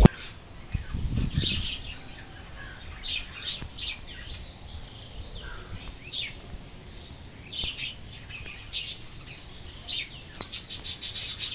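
Birds chirping: short, scattered calls throughout, then a quick run of repeated chirps near the end.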